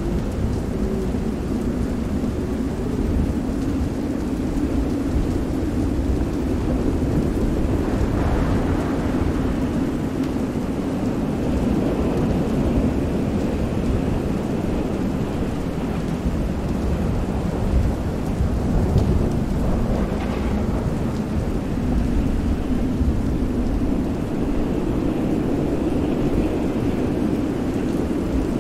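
Storm ambience: steady heavy rain with deep rolling thunder, wind and sea waves, swelling and easing, with brief louder surges about eight and twenty seconds in.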